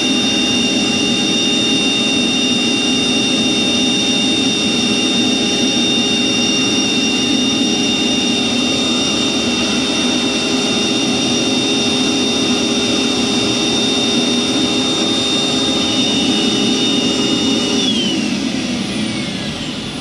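CanaVac central vacuum power unit running with a steady high whine, working normally with its emptied canister sealed back on. About 18 seconds in it is switched off and the whine slides down as the motor winds down.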